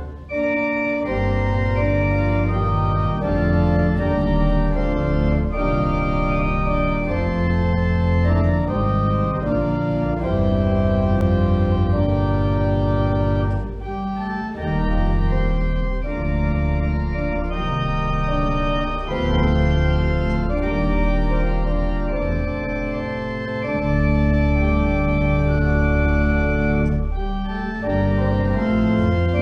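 Organ playing held chords that change every second or so over sustained bass notes, with short breaks between phrases about halfway through and near the end: the closing postlude of a church service.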